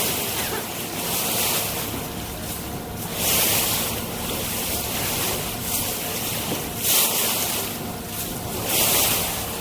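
Ferry under way: a steady engine hum beneath rushing water along the hull, with louder surges of splashing every few seconds.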